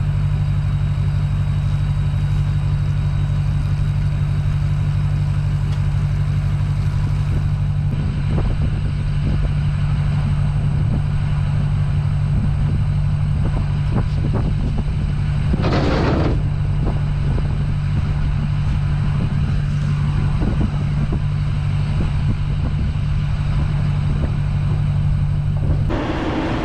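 A vehicle engine running steadily, with a short rushing sound about two-thirds of the way through; the engine stops near the end.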